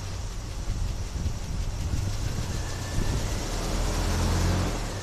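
1976 Chevy Blazer's engine running at idle, a little louder shortly before the end.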